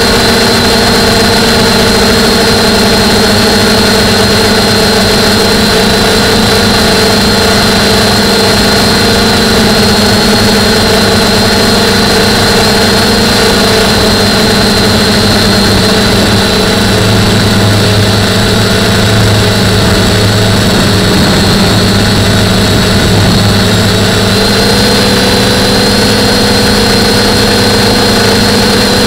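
DJI F450 quadcopter's four DJI E300 920kV brushless motors and 9.4-inch propellers whining steadily in flight, heard close up from a camera mounted on the frame. The tone shifts slightly with throttle and steps up in pitch near the end.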